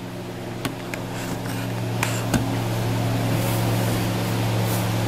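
A steady low machine hum, growing somewhat louder over the first couple of seconds, with a few light knocks and clicks in the first half as the camera is handled and set down on the desk.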